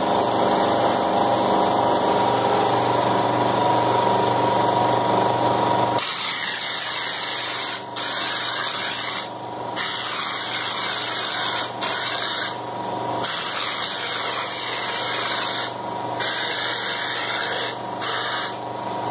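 An air compressor hums steadily. About six seconds in, a compressed-air hopper spray gun starts hissing as it blasts cement slurry (chapisco) onto a wall, in long bursts broken by several brief pauses.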